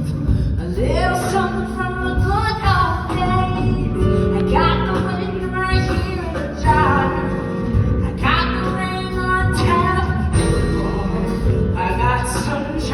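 Live musical-theatre singing with band accompaniment, the sung lines rising and falling over a steady instrumental backing.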